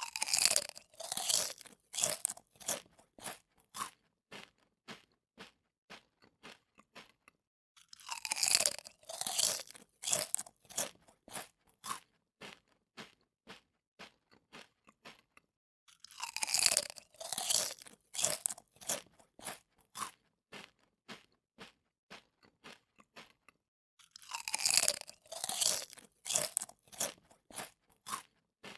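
Close-up crunchy chewing of crisp food: four rounds about eight seconds apart, each opening with a loud crunching bite and tailing off into quieter, evenly spaced chews.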